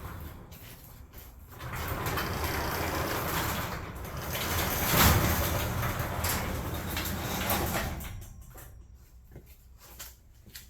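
Garage door rolling along its tracks for about six seconds, with a louder knock about halfway through.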